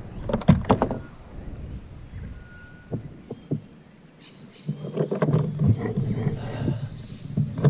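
Handling noise as a small bass is unhooked in a kayak: a quick run of sharp clicks and knocks about half a second in, a few single knocks, then rough rustling and knocking about five seconds in.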